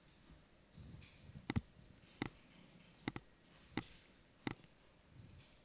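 Computer mouse button clicks, about six sharp clicks spread over a few seconds, some in quick pairs, over a quiet room background.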